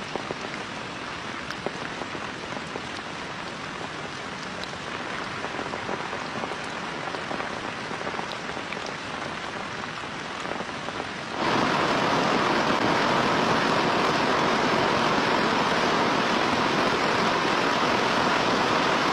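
Heavy rain falling, with individual drops ticking on a surface. About eleven seconds in, it jumps suddenly to a much louder, denser, steady rain hiss.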